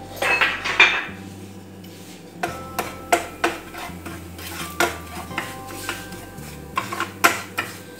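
A cooking spoon stirring coarse kadai masala in a little oil in a metal pan, with irregular clinks and scrapes against the pan, some briefly ringing.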